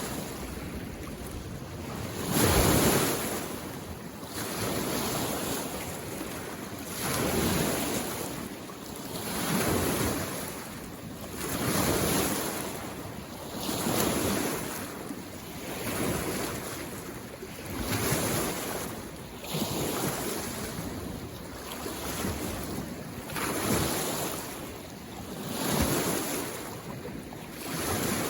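Small waves coming in on a mountain lake shore, a wash of water about every two seconds, the loudest about two and a half seconds in.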